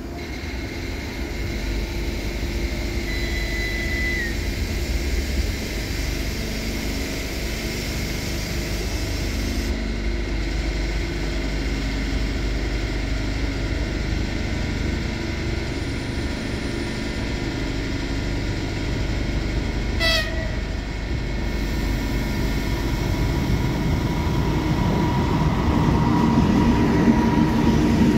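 Passenger train hauled by an EP2K electric locomotive approaching along the track: a steady low rumble that grows louder in the last few seconds as the locomotive and coaches pass close by. A couple of brief high tones cut in, about three seconds in and about twenty seconds in.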